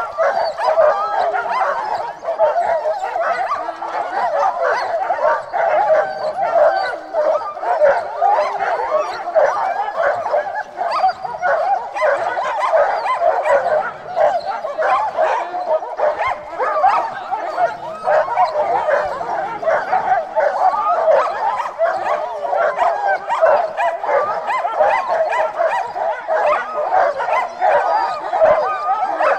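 A pack of sled dogs yelping and whining all at once: a dense, continuous chorus of many overlapping high calls that never lets up.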